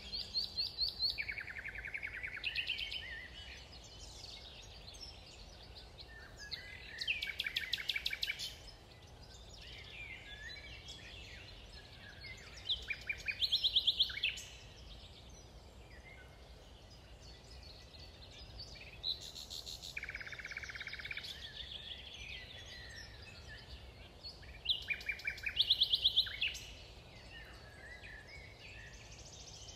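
Songbirds singing in woodland: about five bouts of song, each one to two seconds of rapid trilled notes, spaced every five seconds or so. A low steady rumble lies underneath.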